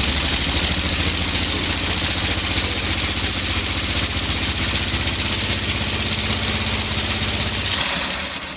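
Home-built compressed-air engine in the rear of a Volkswagen Beetle running at a steady speed: an even low pulsing with a strong hiss of air. The pulsing stops near the end. The owner says it cannot yet run fast because its 4 mm high-pressure valves are too small.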